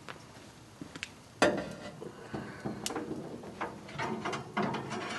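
A sharp metal clank about a second and a half in, then irregular scraping and clinking of the wire cooking rack in a Camp Chef 18-inch Smoke Vault smoker as ribs are laid on it.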